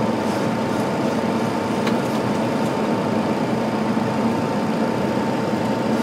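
Steady flight-deck noise of a Boeing 737 on approach: an even rush of airflow and engines, with a constant high hum running through it.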